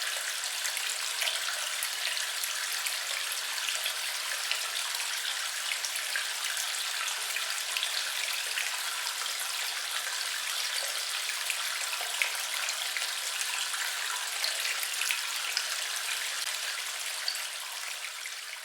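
Water running and splashing steadily, with many small drip-like ticks in the flow; it begins to fade near the end.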